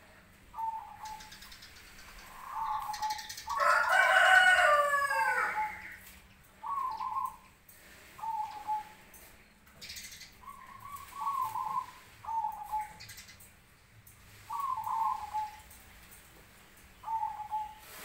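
Caged zebra doves of the black cemani strain cooing in short repeated phrases, several birds answering one another. About four seconds in, a much louder, drawn-out call of about two seconds cuts across the cooing.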